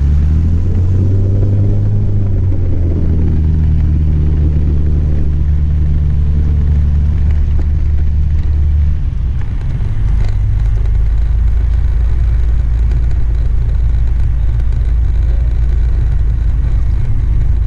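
Single-engine light aircraft's piston engine and propeller heard inside the cockpit, revving up near the start and then running steadily. About nine seconds in, the engine tone gives way to a steady low rumble.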